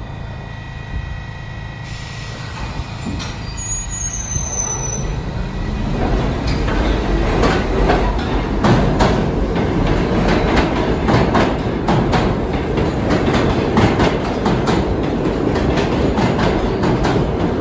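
R68A subway train pulling out of an underground station. A low rumble builds as it picks up speed, with a brief high squeal about four seconds in. From about six seconds a louder clatter of wheels over rail joints sets in and keeps on.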